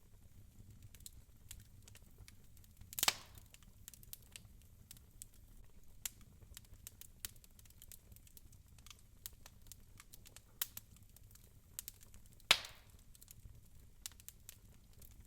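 Wood fire crackling in a fireplace: scattered small clicks, with two louder pops about three seconds in and about twelve seconds in.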